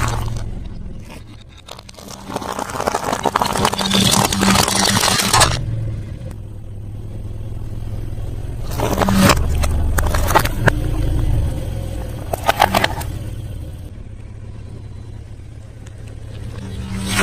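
Close-miked chewing and crunching of crispy fried food in three loud bursts of a few seconds each, over a steady low hum.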